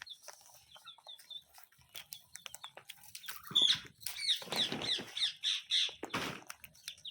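Pet parrot calling: a quick row of short, faint chirps at first, then from about three and a half seconds in a louder series of sharp chirps and squawks, with scuffling noises between them.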